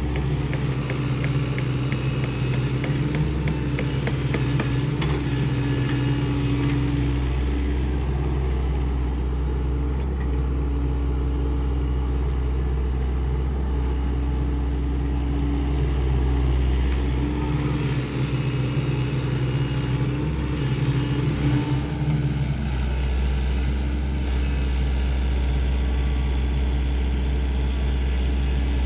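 Diesel engine of a Sany SY75 excavator running steadily at working speed. A light rattle of clicks runs through the first several seconds.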